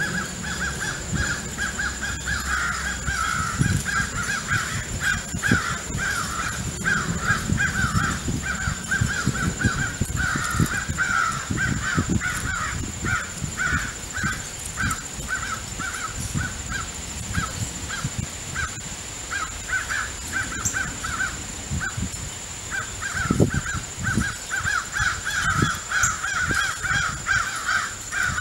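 Crows cawing in a rapid, near-continuous run of short calls, breaking off briefly about twenty seconds in before starting up again.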